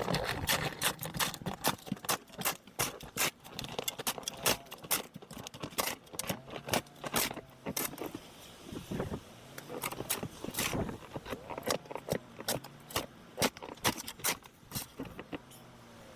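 Snow shovel scraping and knocking over a patio with a little ice left on it: a quick, irregular run of scrapes and sharp clacks.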